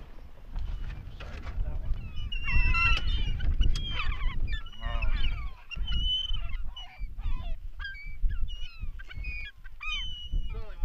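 A flock of gulls calling: many short squawks and cries overlapping, some rising and some falling in pitch, over a low rumble.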